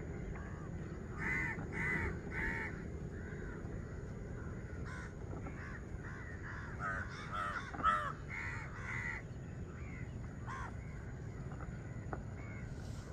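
Crows cawing in short runs: three caws about a second in, a busier stretch of overlapping caws in the middle, and a few more near the end, over a steady low background rumble.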